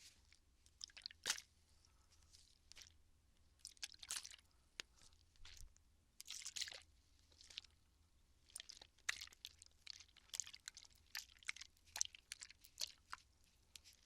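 Plastic water bottle crinkling and clicking as it is handled close to the microphone, in an irregular run of short, crisp crackles.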